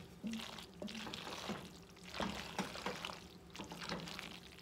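Wooden spoon stirring a full pot of cooked pasta in an enamelled Dutch oven: wet squelching and scraping strokes, about two a second.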